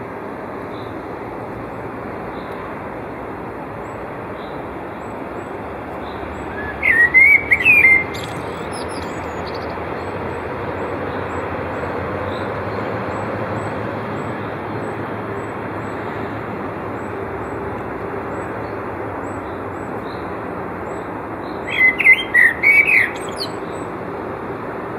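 Male common blackbird singing two short phrases about fifteen seconds apart. Each is a fluting warble that ends in a high, thin twitter, heard over a steady background hiss.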